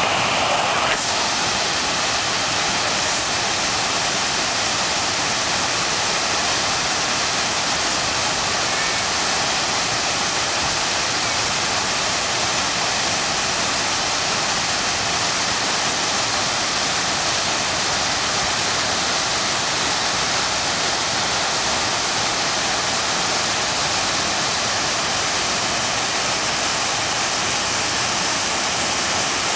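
Harajiri Falls, a waterfall about 120 m wide and 20 m high, rushing: a steady, even roar of falling water.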